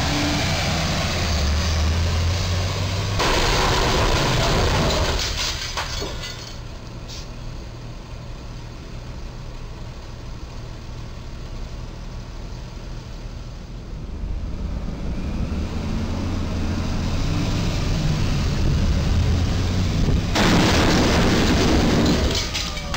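A box truck's engine rumbles as it approaches, then about three seconds in its refrigerated box slams into the low railroad bridge's steel crash beam: a loud crunching crash lasting about two seconds, followed by a few sharp knocks of falling debris. Quieter traffic noise follows, and a second loud crash of about two seconds comes near the end.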